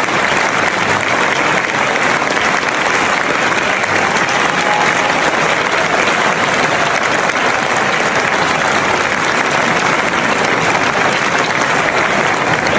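A large crowd clapping and cheering steadily, a dense continuous roar of applause.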